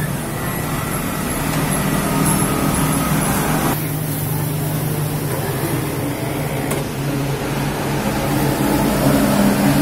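A steady low mechanical hum, like a running engine, with a sudden change in its higher sounds at about 4 and 7 seconds.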